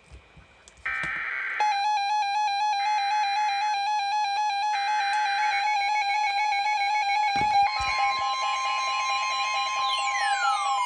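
Electronic alert-broadcast audio. A steady buzzy tone runs on, and three short raspy data-like bursts sound over it in the first half. A second, higher steady tone joins about two-thirds of the way in, and falling whistle-like glides start near the end.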